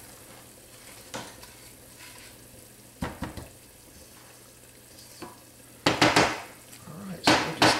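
Silicone spatula stirring and scraping a flour-and-oil roux in a stainless steel skillet, over a faint sizzle from the pan. A few light taps come first, then two louder scraping strokes near the end.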